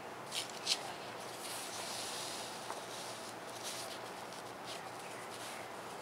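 Light handling sounds of thin onion-skin paper and a bent-nib art pen over a steady hiss: two sharp ticks near the start, a soft sliding rustle about two seconds in, and short scratchy strokes later as the nib works on the paper.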